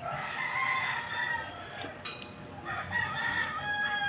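A rooster crowing twice, two long drawn-out crows, the second ending in a falling note.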